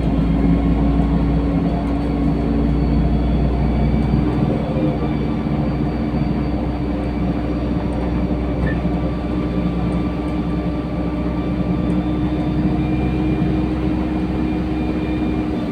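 LiAZ-5292.67 city bus under way, heard from inside the passenger cabin: a steady drone of engine and drivetrain with a held hum running through it, and a constant road rumble.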